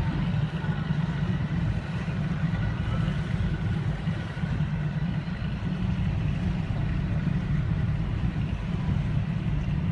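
Boat engine running steadily with an even, low drone.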